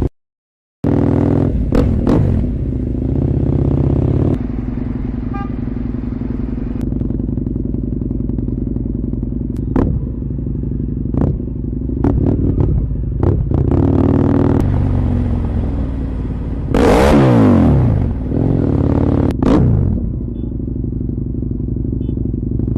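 Motorcycle engine running steadily with a loud exhaust and some clatter. A little over two-thirds of the way through the pitch drops and then climbs again as it is revved. The sound cuts out for under a second at the very start.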